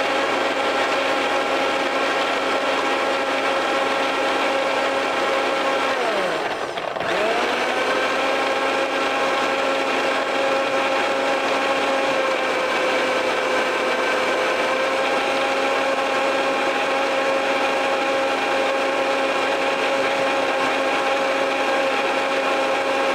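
Countertop electric blender running with a steady whine, grinding cucumber and peeled almonds into a smooth purée. About six seconds in, the motor's pitch drops sharply and spins back up within a second, then holds steady.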